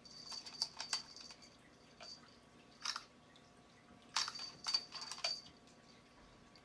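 A hanging beaded ornament jingling and clattering with a high ringing as a cat bats and paws at it, in three bursts: at the start, once about three seconds in, and again from just after four seconds.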